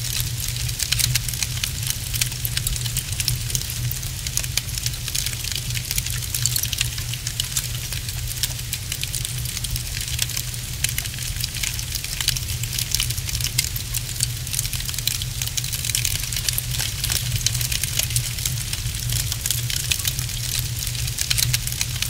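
Wood fire crackling steadily with many small snaps and pops, over a low, even rumble.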